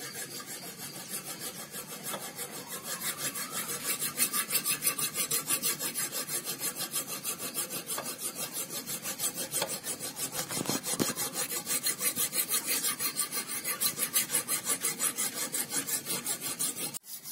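Flat steel hand file rasping back and forth across the edge of a thin steel knife blade held in a bench vise, in rapid, even strokes. The file is used instead of a grinder because the blade stock is very thin. The strokes stop briefly near the end.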